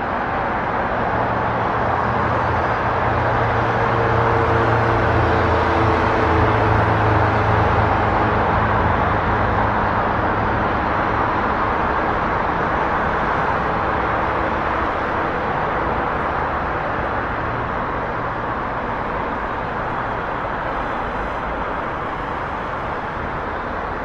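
City street traffic noise: a steady wash of engines and tyres on the road. One vehicle's engine swells louder about five seconds in and fades away over the following several seconds as it passes.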